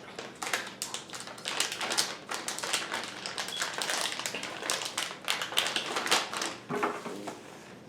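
Stiff plastic snack pouch being handled and crinkled, an irregular run of crackles and clicks.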